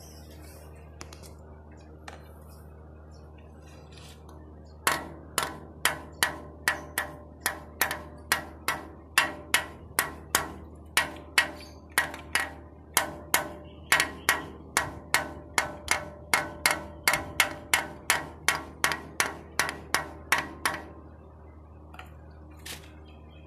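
A small bell struck in a fast, even series, about two to three strikes a second, each with a short ring. The striking starts about five seconds in and stops a few seconds before the end: rung to toll the hour.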